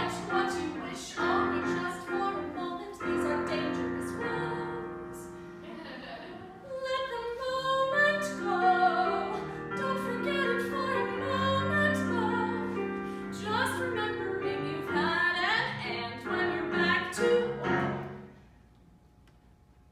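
A woman singing a musical-theatre song with digital piano accompaniment; the song ends with a final held phrase about two seconds before the close.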